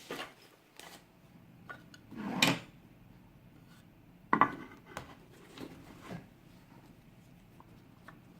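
Knocks and clatter of small metal tools and lock parts being handled on a wooden surface. The loudest sound is a short scrape, like a drawer or tray sliding, about two and a half seconds in, followed by a sharp knock a couple of seconds later and a few lighter taps.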